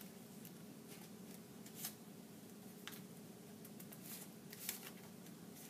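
Faint handling of craft paper: a few soft rustles and light ticks over a low steady room hum.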